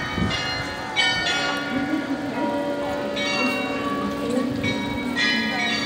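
Bells of the Glockenspiel in Munich's New Town Hall tower playing a tune: separate struck bell notes of different pitches, each ringing on into the next.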